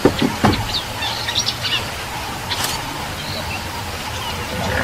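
Wild birds chirping and calling over a steady low hum, with a couple of sharp thuds in the first half-second.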